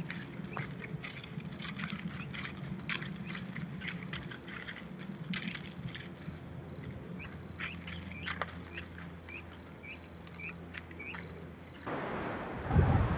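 Dry leaf litter crackling and rustling as pheasants forage, with a bird's short rising chirps repeated about twice a second in the second half. Near the end the sound changes abruptly to a steady wind hiss with a low thump.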